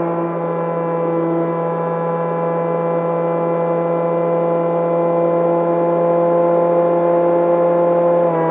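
Electric motor and pusher propeller of an E-flite Opterra flying wing, heard from on board the aircraft. It hums steadily at a constant throttle with one unchanging pitch, growing slightly louder toward the end.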